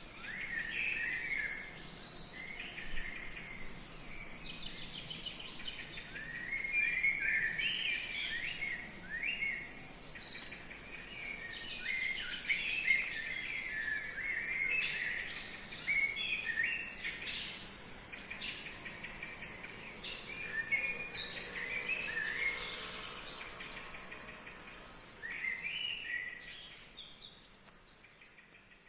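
Rainforest ambience: a steady, high, pulsing insect trill with many bird calls chirping over it, fading out over the last few seconds.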